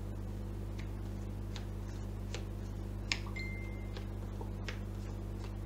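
A phone notification beep: a sharp click, then a short, steady high tone about three seconds in. Under it run light, evenly spaced ticks, roughly one every three-quarters of a second, and a steady low hum.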